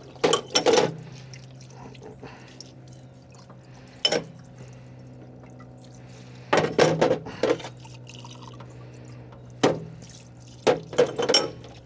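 Parts washer running with a steady hum as diesel flows and splashes over shock parts, with several short bouts of metal parts clinking and clattering in the washer tub.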